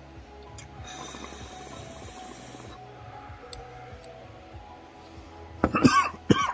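A long inhale through a glass recycler dab rig, heard as a steady hiss of air drawn through the rig for about two seconds. Near the end come loud, harsh coughs after the hit.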